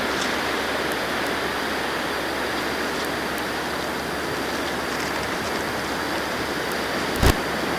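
Steady rushing noise of a snowstorm, wind and falling precipitation, with one sharp knock about seven seconds in.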